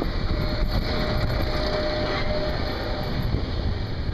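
Expedition Everest roller coaster train rolling along its steel track: a steady rumble, with a faint whine in the middle and a few light clicks.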